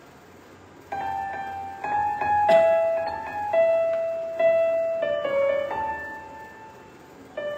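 Piano playing a slow line of single notes, one after another, each ringing and fading, starting about a second in. A short sharp click sounds about two and a half seconds in.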